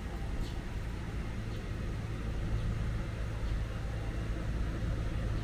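Low steady rumble of motor traffic with a deep engine hum, growing slightly louder toward the end.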